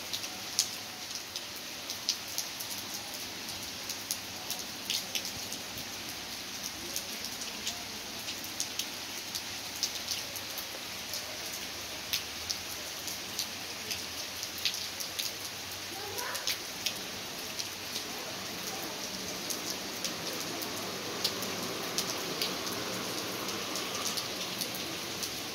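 Heavy rain falling steadily on a stone-tiled terrace, a constant hiss with close drops ticking sharply now and then.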